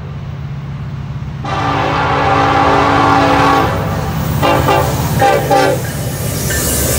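Norfolk Southern EMD SD70ACe freight locomotive's air horn sounding a grade-crossing warning: one long blast held for about two seconds, then three short blasts. Beneath it the locomotive's diesel engine rumbles steadily, with wheel and track noise rising near the end as the train draws close.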